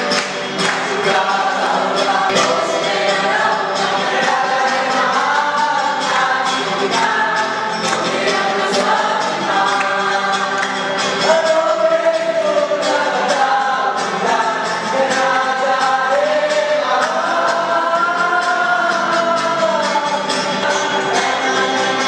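A church congregation singing a praise song together, clapping along in a steady rhythm.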